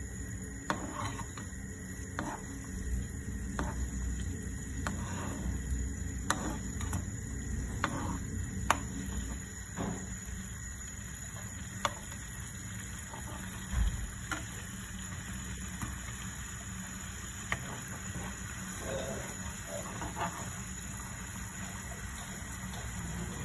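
A metal spoon clinking against a pan or bowl while stirring: sharp clinks about every second and a half for the first ten seconds or so, then further apart, over a steady low hum.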